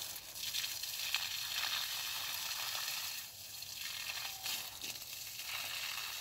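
Water spraying from a garden hose with its end pinched, pattering onto leafy sweet potato vines: a steady hiss that briefly eases a little past the middle.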